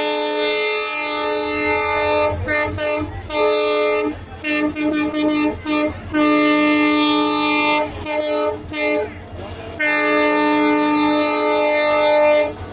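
Train locomotive horn blown again and again by the loco pilot as a warning to clear a crowd: long held blasts of about two seconds broken by runs of short, rapid toots.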